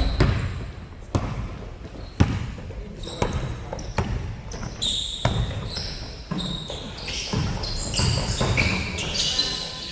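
Basketball bouncing on a court during a game, sharp knocks roughly once a second, the loudest a little over two seconds in, with short high squeaks between them.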